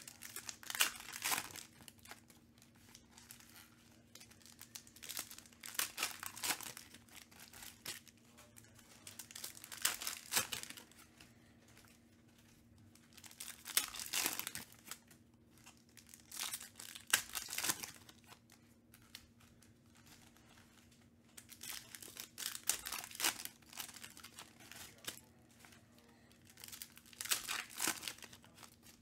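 Foil trading-card pack wrappers being torn open and crinkled by hand, in crackly bursts every few seconds with quieter handling between.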